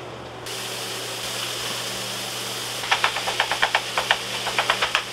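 Hot oil sizzling in a frying pan, starting about half a second in. From about three seconds in, a wooden spoon taps and scrapes quickly against the pan while breaking up raw ground beef.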